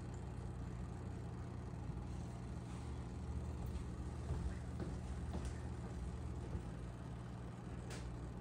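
Steady low mechanical hum of running aquarium equipment, with a few faint clicks.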